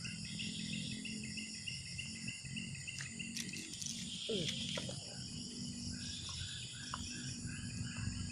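Insects chirring steadily and high-pitched around a pond, with a rapidly repeated chirping call from a small animal near the start and again from about five and a half seconds in.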